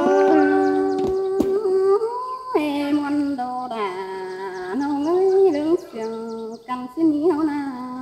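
A woman singing a Tai Dam (Black Thai) folk courtship song, unaccompanied, in long held notes that slide and waver between pitches, with short breaks for breath.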